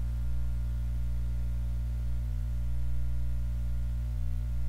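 Steady low electrical hum with faint higher buzzing tones above it, unchanging throughout.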